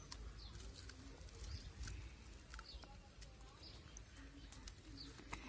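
Faint bird chirping, short falling calls about once a second, over a low rumble, with a few small clicks.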